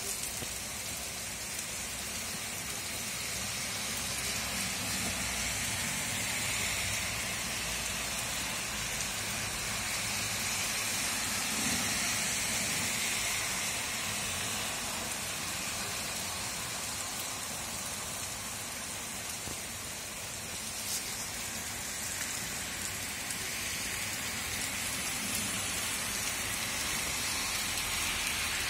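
Heavy rain pouring steadily onto a wet street, parked cars and roadside hedges and trees: a continuous even hiss.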